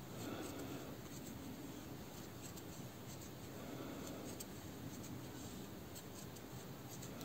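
Faint rubbing and small ticks of a crochet hook pulling cotton yarn through stitches while single crochet is worked by hand.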